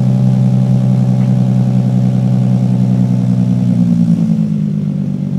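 2013 Roush RS Mustang's V6 engine running at a raised idle just after a start, through Pypes Pype Bomb axle-back mufflers. About four seconds in, the idle drops as the engine settles.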